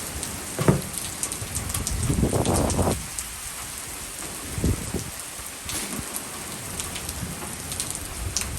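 Heavy rain mixed with small, dime-sized hail, a steady wash of rain with many sharp ticks of hailstones striking. Low rumbles swell up a few times, loudest about two to three seconds in.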